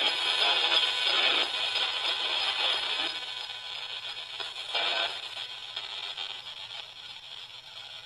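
Small portable radio used as a spirit box, sweeping stations: a hiss of static broken by short, chopped fragments of broadcast voice and music, near the start and again about five seconds in. It grows quieter toward the end.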